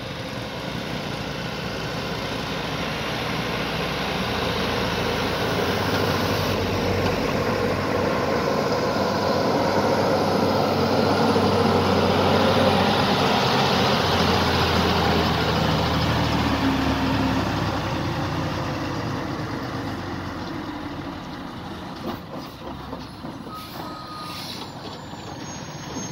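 Heavy diesel goods trucks driving past. The engine noise grows steadily to its loudest about halfway through, then fades as the truck pulls away.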